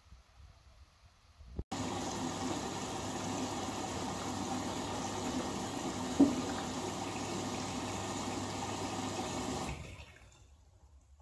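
Front-loading washing machine drum turning through a wash, wet bedsheets and towels sloshing and tumbling in the water. It starts suddenly a couple of seconds in, has one louder thump midway, and dies away near the end as the drum comes to rest.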